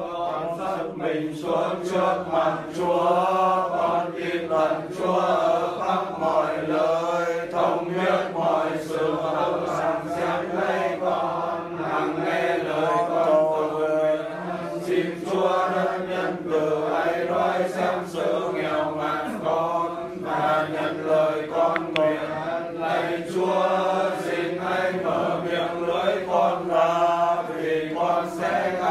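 Voices reciting a Vietnamese Catholic prayer in the traditional chanted, sing-song style of communal prayer, syllable after syllable on a few held pitches without a break.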